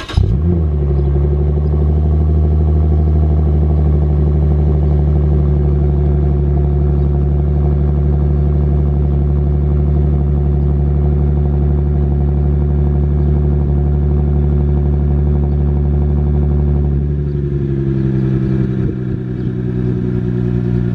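The 2006 Lexus IS350's 3.5-litre V6 cold-starts through its single-exit exhaust, flaring briefly, then holds a steady fast cold idle. About seventeen seconds in, the idle drops to a lower speed.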